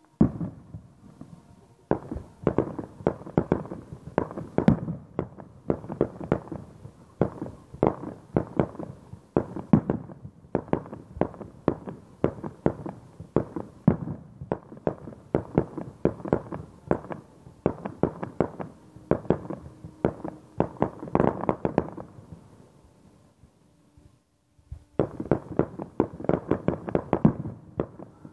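Fireworks display: a rapid run of aerial shell bursts and crackling bangs, several a second. They die down for a few seconds near the end, then start up again.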